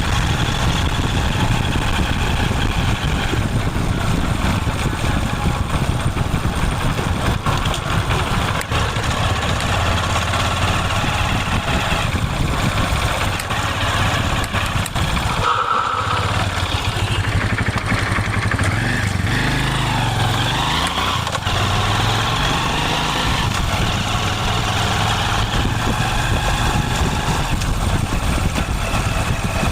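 Motorcycle engine running steadily, mostly at idle. About halfway through the sound dips briefly, and its note shifts for a few seconds before settling back to the steady idle.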